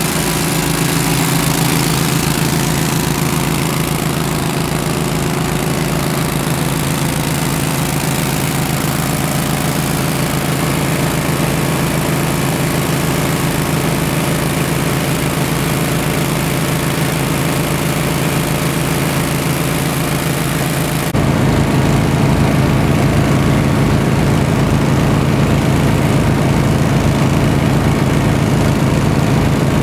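Gold dredge's engine running steadily with a fast, even low beat. About two-thirds of the way through the sound cuts abruptly to a louder engine running at a slightly different pitch.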